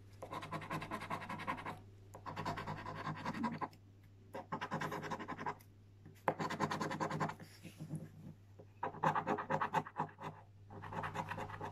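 A coin scraping the coating off a Mega Cashword scratchcard on a wooden table in rapid back-and-forth strokes, in about six short bouts with brief pauses between them.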